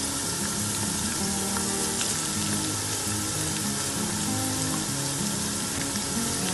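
Sliced onions sizzling steadily as they fry in hot oil in a pot, with background music carrying a low melody underneath.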